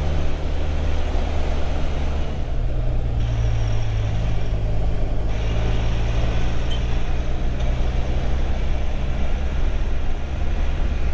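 Motorcycle engine running steadily under way, mixed with wind and road noise; the engine note shifts about three seconds in.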